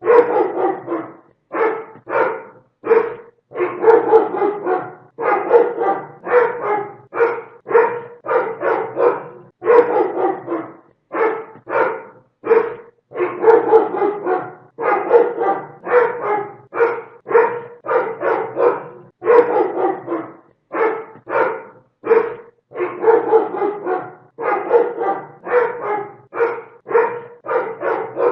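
A dog barking loudly and repeatedly, in quick runs of about two or three barks a second with short pauses between the runs.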